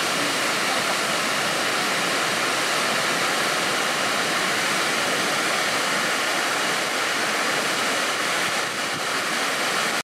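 Waterfall: a steady rush of water pouring over rock ledges and crashing into the pool below.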